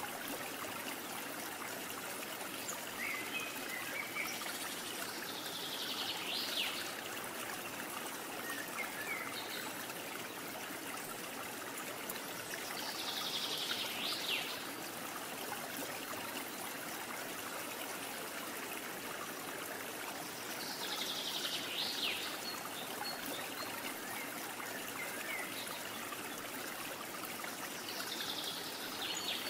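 Steady rushing sound of a flowing stream, with short bird calls every several seconds.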